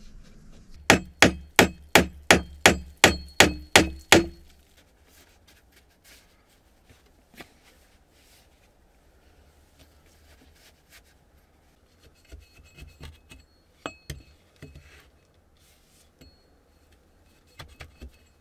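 Hammer driving a nail into log wall timber: about a dozen quick, evenly spaced ringing blows, roughly three a second, in the first few seconds. Later come a few lighter knocks and clinks.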